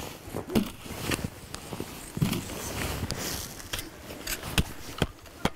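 Snow shovel scooping loose snow and tipping it into a plastic crate: a run of crunches and scrapes.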